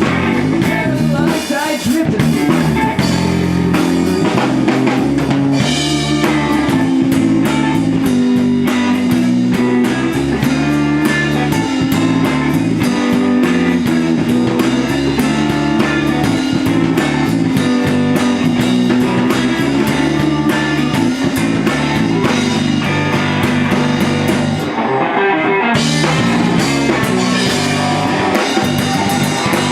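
A rock band playing live, with electric guitar and drum kit in an instrumental jam. The drums' high end drops out for about a second near the end before the full band comes back in.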